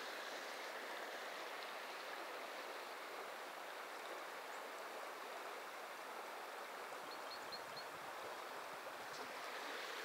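Steady rush of river water flowing past, with four quick, faint high chirps about seven seconds in.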